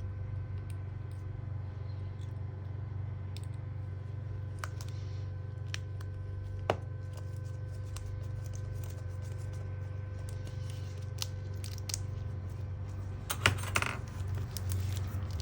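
Scattered light clicks and taps of small tools and parts being handled during a laptop repair, with a sharper click about 7 s in and a cluster of clicks near the end, over a steady low hum.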